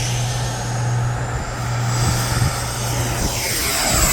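Electric ducted fan of an FMS F-86 Sabre 80 mm RC jet spooling up for takeoff, its thin whine rising steadily in pitch. Near the end a rushing sound sweeps down in pitch.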